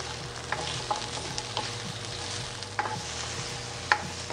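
Bell pepper pieces sizzling and crackling in hot oil in a nonstick stir-fry pan while being stirred. A spatula scrapes and knocks sharply against the pan a few times.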